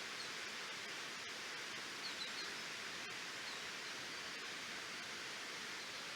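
Waterfall rushing steadily as an even wash of falling water. A few faint, short, high chirps sound over it, the clearest about two seconds in.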